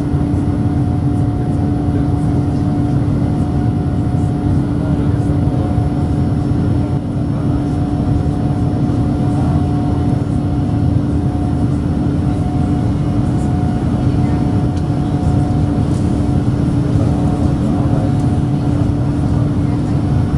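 Boeing 787-9 Dreamliner's Rolls-Royce Trent 1000 turbofans at climb power just after takeoff, heard inside the passenger cabin: a steady, loud rush with a strong steady hum and a fainter higher tone running through it.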